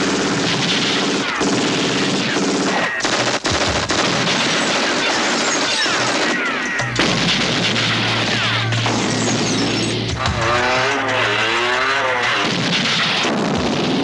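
Action-film gunfight: rapid, continuous gunfire from handguns and automatic weapons, with a music score underneath. A wavering, pitch-sliding sound comes in about ten seconds in.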